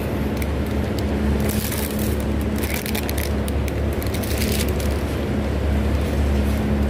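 Metal shopping cart rolling over a concrete floor with scattered light rattles and clicks, over a steady low hum.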